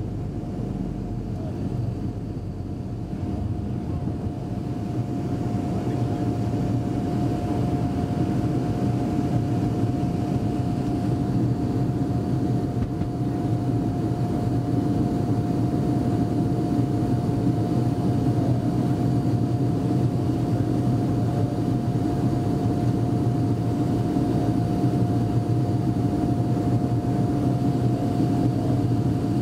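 Avro RJ100's four Lycoming LF507 turbofans at takeoff and climb thrust, heard from inside the cabin beside the wing. A deep steady rumble carries a steady tone above it, growing slightly louder a few seconds in.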